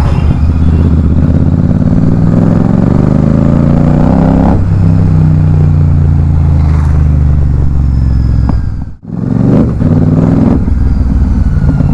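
Royal Enfield Super Meteor 650's parallel-twin engine and exhaust under hard acceleration. The pitch rises, drops at a gear change about four and a half seconds in, then climbs again. The sound cuts out for a moment about nine seconds in, then the engine picks up again.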